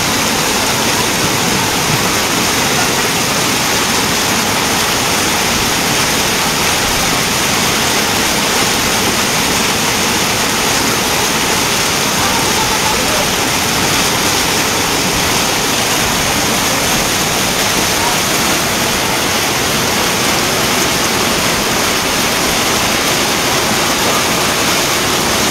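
Torrent of muddy floodwater rushing down a street, a loud, steady rush of water without let-up.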